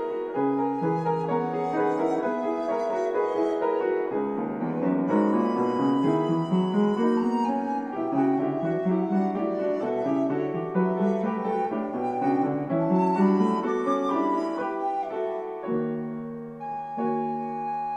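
Piano and recorder playing a slow classical piece. The piano plays rippling arpeggios that climb in pitch again and again, and near the end the music softens into held notes.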